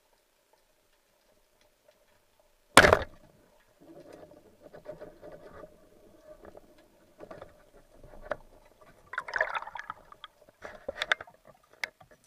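A rubber-band speargun fires underwater: one sharp, very loud crack a little under three seconds in. After it comes irregular water noise with knocks and clicks, and a louder rush of bubbling and splashing about nine seconds in, as the diver moves and surfaces.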